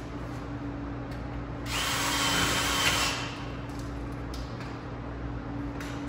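Power drill driving a screw into a metal stud, one burst of about a second and a half. A steady low hum runs underneath.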